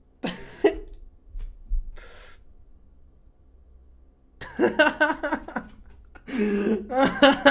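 A man laughing in two bursts in the second half, after a couple of short breaths.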